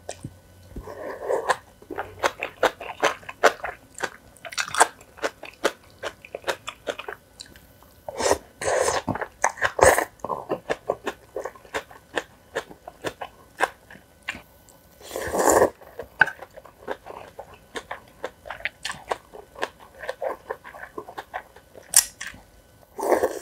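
Close-up eating sounds: a person chewing and crunching food in many quick crackles, with a few louder, longer bursts of mouth noise now and then.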